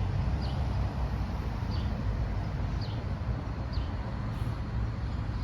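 Steady rumble of traffic from the nearby highway, with a short high bird chirp repeating about once a second.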